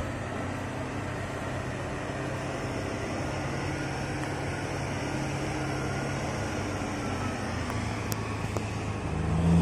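Steady low hum of heavy mining machinery running, with a louder, deeper engine tone coming in just before the end.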